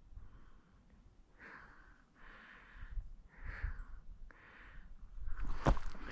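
A person breathing close to the microphone: four soft breaths about a second apart. Near the end comes rustling, with a sharp knock, as they start to move.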